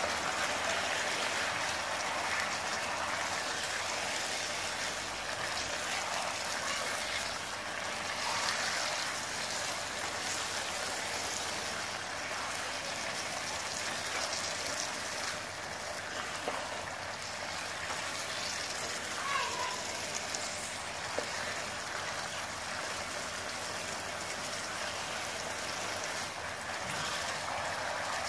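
Cubes of pork belly sizzling in sauce in a wok: a steady hiss, with the occasional soft scrape and clack of a spatula turning the pieces.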